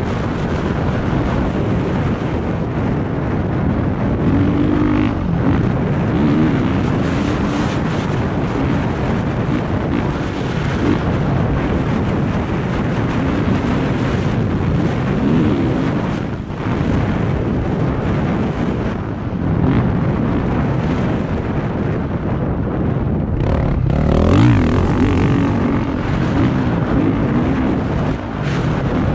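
2020 Honda CRF450R's single-cylinder four-stroke engine under hard riding, its pitch rising and falling with the throttle and dropping off briefly a few times. Wind buffets the helmet-mounted microphone.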